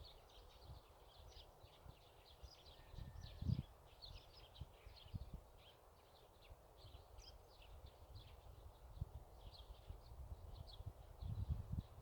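Small birds chirping and twittering without pause, faint, with occasional low rumbles underneath, the strongest about three and a half seconds in and near the end.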